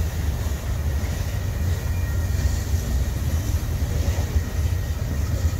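Freight train cars, tank cars and covered hoppers, rolling past at close range: a steady, dense low rumble of steel wheels on the rails.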